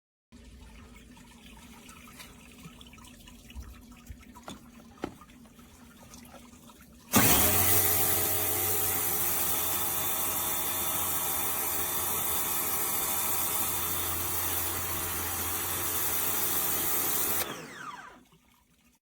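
Bosch UniversalAquatak 135 electric pressure washer switched on about a third of the way in. Its motor and pump run with a steady hum under the loud hiss of the water jet, then it is switched off near the end, the motor's pitch falling as it spins down. Before it starts there are only a few faint clicks.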